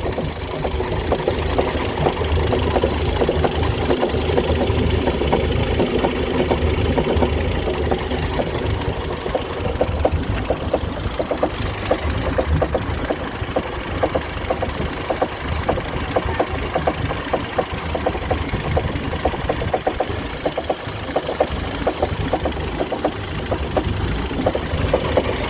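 1958 Chrysler Crown Special M-47S marine engine, a flathead straight-six, running smoothly at idle with an irregular clucking knock over its steady firing. The cause of the knock is unknown.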